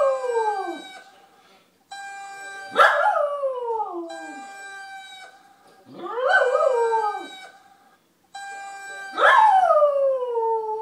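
A dog howling along to the steady high whine of an RC electric-ducted-fan jet. There are three long howls, each jumping up in pitch and sliding slowly down, plus the falling end of another at the start. The whine cuts out twice for a moment and starts again abruptly.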